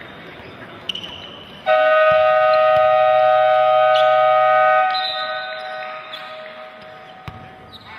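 Basketball scoreboard horn sounding one loud, steady blast of about three seconds, then dying away in the echo of the hall. Short, high referee whistle tones come just before it and again as it ends.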